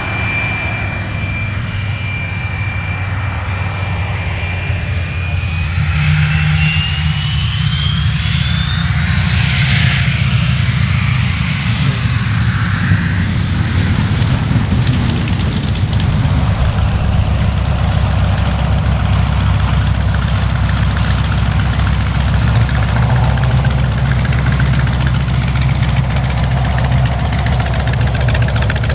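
Radial engine of a North American T-28B Trojan, a Wright R-1820 Cyclone nine-cylinder, running at low power as the aircraft lands and taxis. It makes a continuous low drone, with a high whine that rises in pitch about five to ten seconds in.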